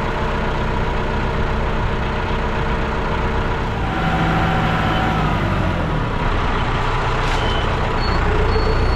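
John Deere 6630 tractor engine running steadily; about four seconds in its note changes and slides lower. Near the end a thin, broken high beeping tone comes in over the engine.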